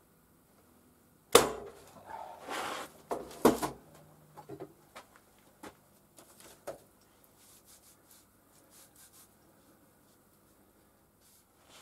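Wooden workpieces being handled on a workbench: a sharp knock about a second and a half in, a few seconds of scraping and clattering, then light taps and rubbing.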